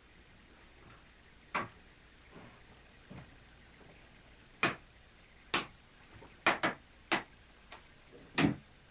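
A series of sharp knocks and clicks, about eight, irregularly spaced: one alone, then a cluster with a close pair in the middle and the heaviest, deepest knock near the end.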